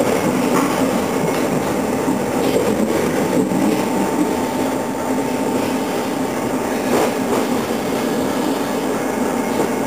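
Passenger train running, heard from inside the carriage: a steady rumble of wheels on the rails, broken by a few sharp clicks.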